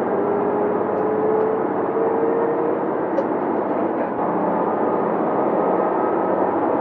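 Steady engine and running noise inside a JR Shikoku 2700-series diesel express railcar under way, with an engine tone slowly rising in pitch over the first three seconds.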